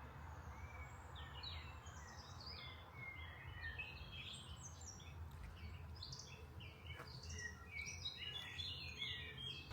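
Songbirds chirping and singing, several calls overlapping, over a faint steady low rumble.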